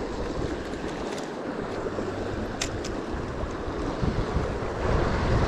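Steady rush of a fast river current, with wind rumbling on the microphone more strongly near the end. A single short click about two and a half seconds in.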